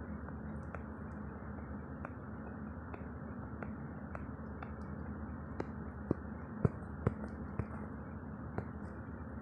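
Scattered small clicks and taps, a few louder ones clustered past the middle, over a steady low hiss.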